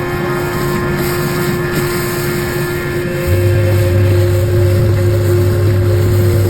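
Pressure washer's engine running steadily under background music, with a deeper low hum joining about three seconds in.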